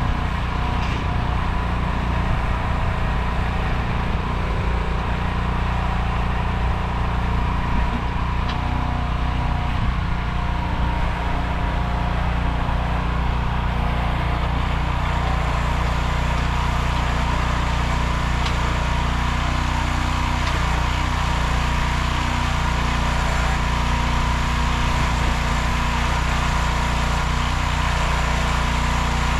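Small 15 hp engine of a Nortrac towable backhoe running steadily.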